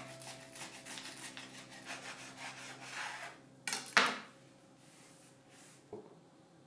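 A chef's knife sawing back and forth through a toasted sandwich on a cutting board, the crisp toast crunching with each stroke. About four seconds in comes a sharp knock as the blade meets the board and the knife is set down, then a lighter knock near the end.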